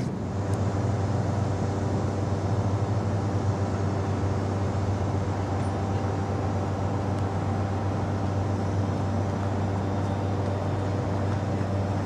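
A large engine running steadily: a low, even hum with several steady tones above it, starting abruptly at the outset.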